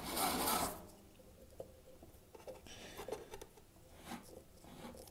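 Brief rubbing scrape, then faint rubs and small knocks, as a new drive belt is worked into place on the motor pulley of an Indesit tumble dryer.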